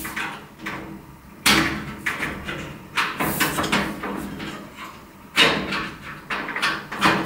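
Thin screwdriver working inside a steel IKEA Helmer drawer cabinet, pushing up the small sheet-metal pins that lock the lid: a series of metallic clicks and knocks, four of them loud and sharp, a second or two apart, with lighter clicking and scraping between.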